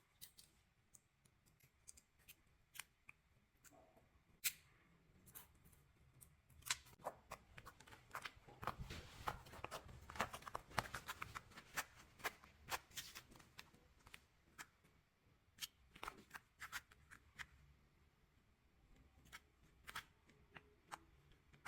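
Slime worked with nano tape, giving quiet, scattered sticky clicks and crackles that grow dense and quick through the middle and thin out again towards the end.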